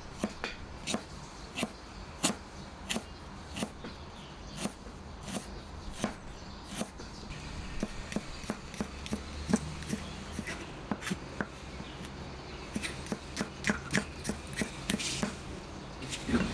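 A series of sharp knocks on a hard surface, evenly spaced at first, about one every two-thirds of a second, then quicker and irregular from about halfway through.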